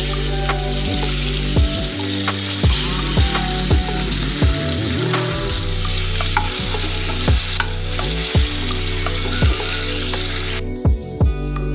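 Turmeric-coated rohu fish pieces sizzling as they fry in hot oil in a pan, turned with a metal spatula. Background music with a steady beat plays underneath, and the sizzling stops near the end.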